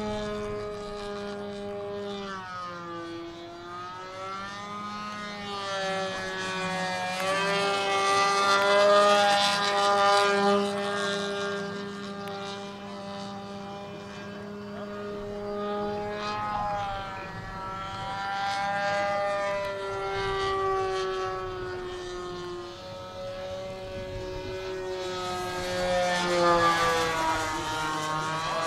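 Siglinde FunFlyer RC model airplane's combustion engine and propeller running in flight, the pitch rising and falling as it manoeuvres. It grows louder twice, about a third of the way in and again near the end.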